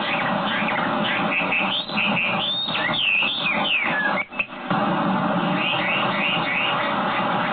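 Chinese hwamei (Garrulax canorus) singing: varied whistled phrases of rising and falling notes, then a quick run of short repeated notes near the end, over a steady loud hiss. The sound cuts out briefly a little past halfway.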